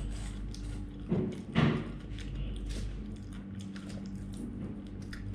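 A person eating: chewing, with two short, louder mouth sounds close together a little over a second in, over a steady low hum.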